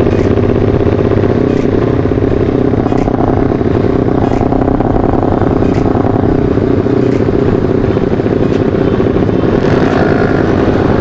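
Yamaha Vixion's single-cylinder four-stroke engine, bored and stroked up to about 200 cc, running under throttle as the motorcycle is ridden; its exhaust note holds fairly steady.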